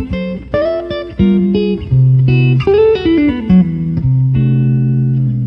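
Instrumental intro music: a run of plucked notes with a downward slide, settling into a long held note near the end.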